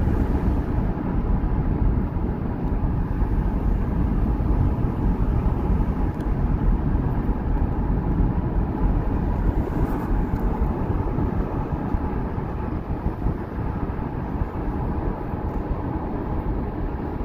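Car driving steadily along a road, heard from inside: a continuous low rumble of tyre and wind noise.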